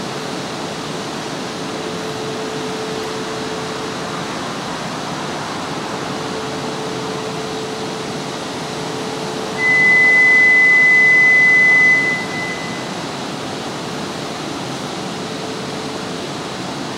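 Steady hum of an E4 Series Shinkansen's blowers and auxiliary equipment as it stands idling at the platform, with a faint steady tone. About ten seconds in, a loud, high, steady electronic beep sounds for about two and a half seconds, then stops.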